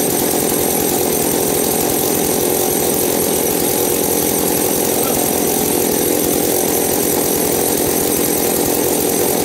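Old McCulloch two-stroke chainsaw engine on a motorized bicycle running steadily, holding an even speed without revving up or down.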